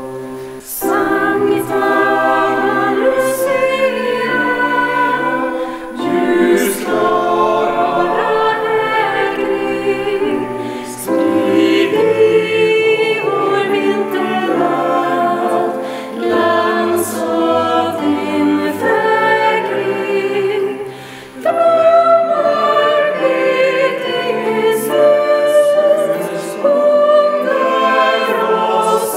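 Choir singing a slow song in phrases of about five seconds, each followed by a short break for breath.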